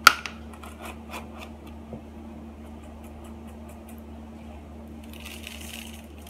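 Spice containers being handled while red pepper flakes go into a brine: a sharp click at the start, a few seconds of light scattered ticks, then a short rustle near the end, over a steady low hum.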